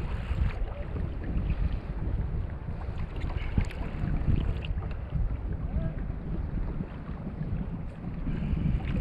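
Wind buffeting the microphone in an uneven low rumble, with choppy sea water washing against a kayak's hull.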